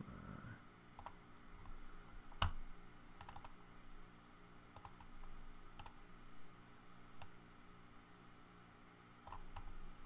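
Scattered clicks of a computer mouse and keyboard over faint room hum, a dozen or so, with the loudest about two and a half seconds in and a quick run of several clicks just after three seconds.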